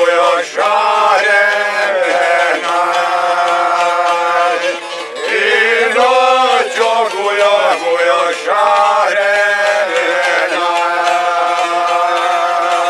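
A group of men singing a Bosnian folk song together, drawing out long held notes, accompanied by plucked long-necked lutes.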